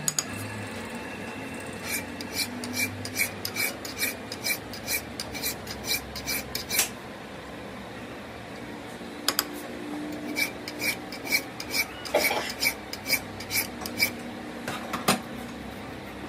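Rhythmic metal-on-metal scraping strokes, about three a second, each with a short metallic ring, as a brake caliper slide pin is worked by hand in a stopped lathe's jaw chuck. The strokes come in two runs with a pause between them.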